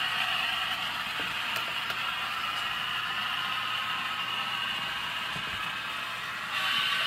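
Model freight train rolling along the track: a steady whir and clatter of small wheels on the rails, louder near the end as the double-stack container cars pass close by.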